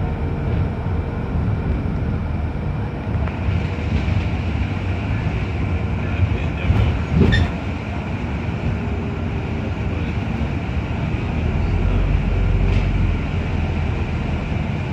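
Interior of a New Routemaster hybrid double-decker bus on the move, heard from the upper-deck rear: a steady low engine and road rumble with rattling from the body, and a sharp knock about seven seconds in.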